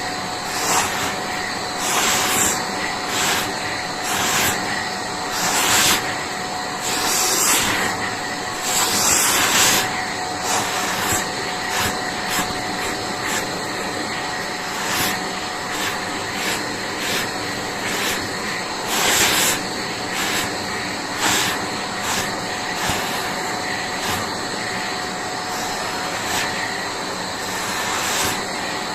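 Vacuum cleaner running steadily, its grooming brush being drawn over a pet's fur, the suction noise surging every second or so with each stroke.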